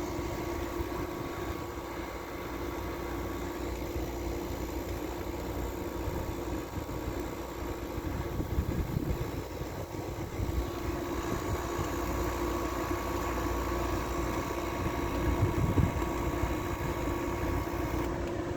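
An 8000 BTU window air conditioner's compressor and fan running with a steady hum, with gusts of wind rumbling on the microphone. Shortly before the end one of the tones drops out as the compressor cycles off.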